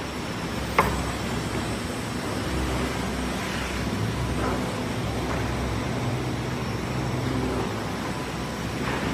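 Profile sanding machine running steadily, with one sharp click about a second in.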